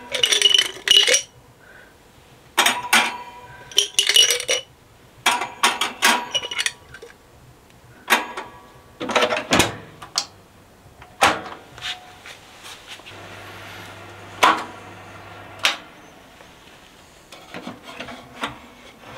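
Small metal radio parts, potentiometers and a push-button switch bank, set down one at a time on a toaster oven's wire rack, clinking and knocking in separate short groups, with the knock of the oven's glass door.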